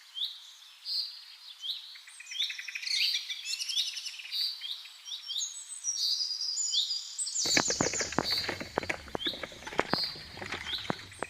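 Several birds chirping and calling, with short repeated high chirps and quick downward-sweeping notes. From about seven and a half seconds in, a rapid run of sharp clicks and knocks joins them.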